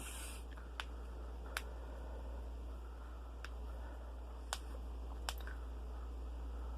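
Knuckles and other joints being cracked by hand: five sharp, separate pops at uneven intervals, a second or so apart.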